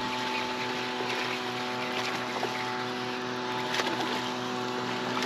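Steady hum of a bass boat's electric trolling motor, with a few short splashes as a hooked bass is reeled in.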